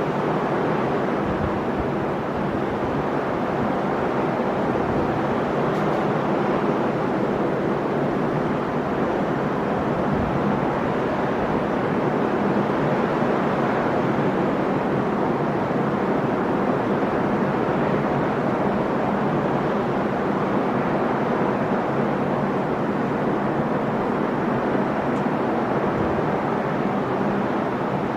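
Sea surf washing onto the shore in a steady, continuous rush of breaking waves.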